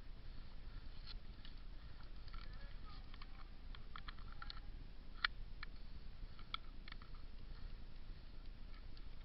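Scattered short sharp cracks of airsoft gunfire, the loudest about five seconds in, over a low steady rumble.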